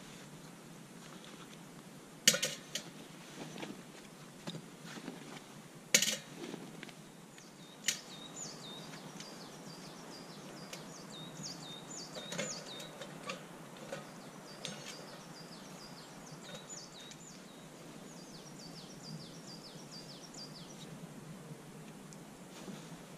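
Three sharp clicks about two, six and eight seconds in, as small fire-making gear is handled. Then a small songbird sings a phrase of quick high chirps stepping downward in pitch, repeated four times.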